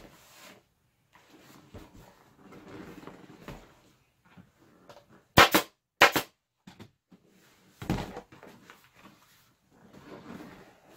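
Staple gun driving staples into the plastic base of an ATV seat. There are two sharp shots about 0.7 s apart, then a third nearly two seconds later, between the rustle of the faux-leather cover being pulled and handled.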